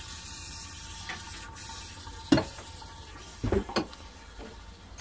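A few light knocks and clicks from cast-iron cistern parts being handled, the sharpest about two and a half seconds in and a pair near the end, over a steady hiss.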